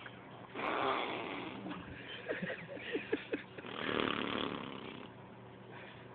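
A person making rasping, snore-like noises with the throat: two harsh breathy rasps about a second long, one near the start and one about four seconds in, with a few short squeaks between them.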